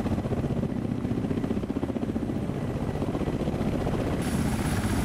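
Kamov Ka-52 attack helicopter hovering low, its coaxial rotors chopping in a fast, steady beat. The hiss grows brighter about four seconds in.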